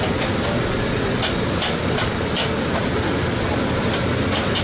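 Steady din of a crowded buffet hall, with several short, sharp clinks of dishes and serving utensils.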